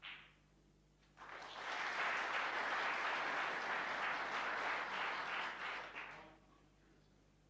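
Audience applauding in the arena. It starts about a second in, holds steady and dies away near the end.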